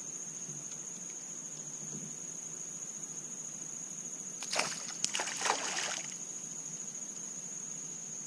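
A hooked fish splashing at the water's surface for about a second and a half, starting about halfway through, over a steady high-pitched insect drone.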